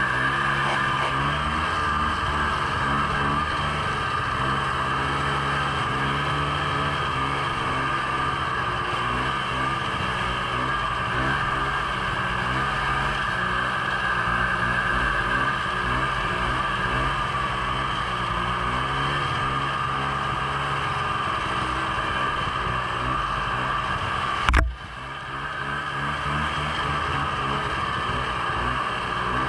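Snowmobile engine running steadily while riding, with one sharp knock about 24 seconds in, after which the sound dips for a moment.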